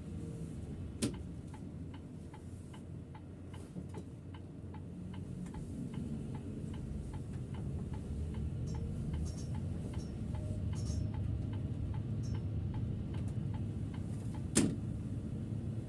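Turn-signal indicator of a Setra S 531 DT double-decker bus ticking evenly at about three ticks a second, over the low rumble of the bus. A sharp click about a second in starts the ticking, and a louder click near the end stops it: the indicator stalk being switched on and off.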